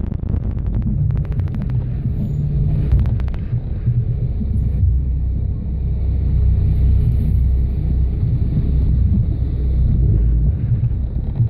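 Off-road 4x4 on 35-inch tyres crawling over rock, its engine running as a steady low rumble. A quick rattle of ticks sits on top of it for the first three seconds or so, then stops.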